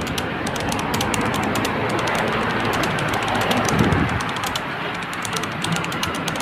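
Keyboard-typing sound effect: rapid, irregular clicks, over a steady background noise.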